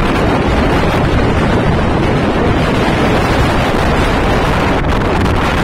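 Strong wind buffeting the microphone: a loud, steady rush, heaviest in the low end.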